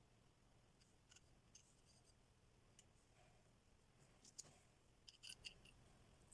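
Near silence with a low steady hum and a few faint, light clicks, most of them in a cluster about four to five and a half seconds in.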